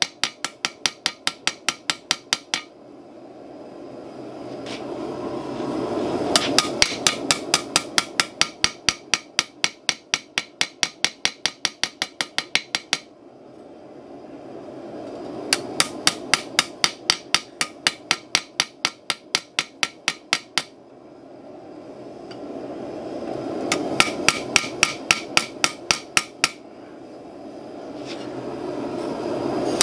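Hand hammer striking hot steel bar stock on an anvil in quick runs of sharp blows, about four or five a second, tapering the end of the bar thin. Between the runs a rushing noise swells up and stops when the hammering starts.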